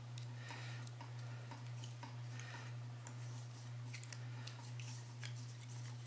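Faint ticks and soft crackling of Teflon thread tape being pulled off its roll and wrapped around a pipe fitting's threads, over a steady low hum.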